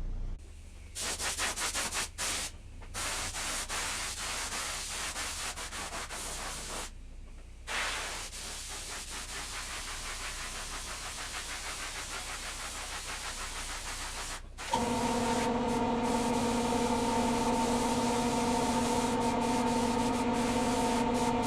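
Abrasive rubbing or sanding noise in uneven strokes, broken by short pauses. About two-thirds through, a motor starts abruptly and runs with a steady hum.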